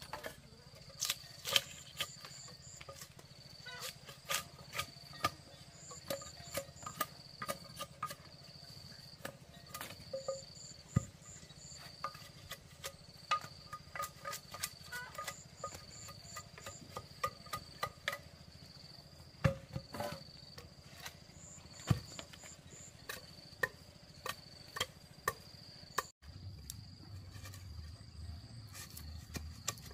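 Machete blade chopping into an upright wooden post: sharp, irregular knocks, sometimes several close together. Insects trill steadily in short repeated pulses behind the chopping.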